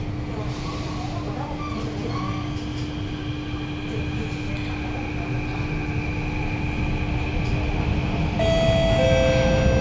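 Inside a Kawasaki–CRRC Sifang CT251 metro car: a steady hum from the car's equipment. About eight seconds in, the traction motors start with stepped whining tones, growing louder as the train pulls away.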